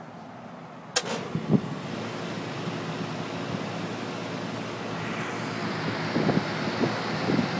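Carrier air handler's blower starting up: a sharp click about a second in, then the blower motor hums and the rush of air builds, getting steadily louder and hissier over the last few seconds, with a few low thuds from the cabinet.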